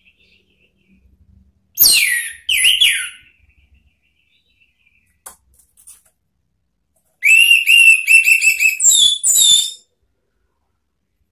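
Orange-headed thrush singing loud whistled phrases. About two seconds in comes a short phrase of falling notes. Near eight seconds a longer burst follows: a quick run of repeated notes, then a few high descending whistles.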